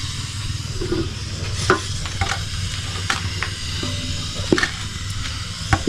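Food sizzling in a pan on a gas stove, a steady hiss broken by scattered clicks and scrapes of a utensil stirring, over a steady low rumble.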